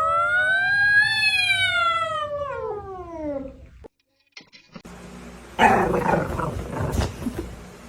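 A dog howls once, a single long drawn-out call that rises for about a second and then slides down over the next few seconds. After a short gap comes a stretch of loud noise with no clear pitch.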